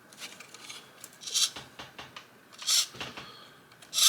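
Eye mechanism parts being worked back and forth by hand: short rubbing swishes about every second and a half, with small clicks between them.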